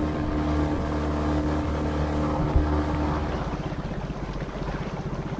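Small outboard motor on an inflatable dinghy running steadily under way. About three seconds in it eases back to a slower, pulsing chug. There is a brief thump about halfway.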